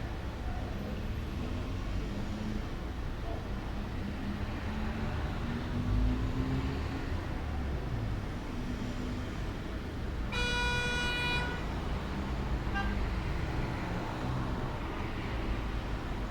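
A steady low rumble of outdoor traffic noise, with a vehicle horn sounding once for just over a second about two-thirds of the way in.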